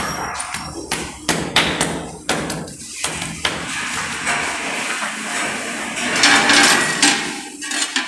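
Hand tapping and pressing a ceramic wall tile into soft cement mortar: a run of sharp, irregular knocks, then a longer rough, noisy stretch near the end.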